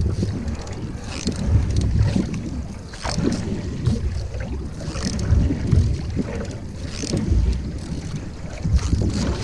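Canoe paddle strokes splashing in the water every one and a half to two seconds, over a loud, uneven rumble of wind buffeting the microphone.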